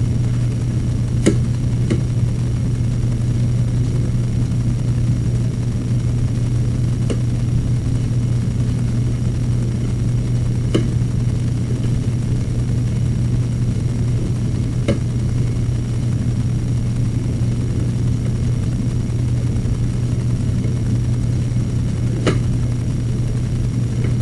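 Steady low machine hum at an even level, with a few faint clicks several seconds apart.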